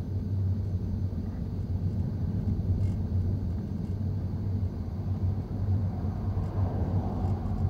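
Steady low rumble of a moving vehicle's engine and road noise, with a constant hum and no sudden events.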